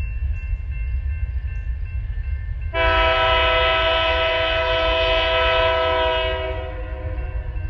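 Locomotive air horn sounding one long blast. It starts abruptly about three seconds in, holds steady, and fades near the end, over a steady low rumble.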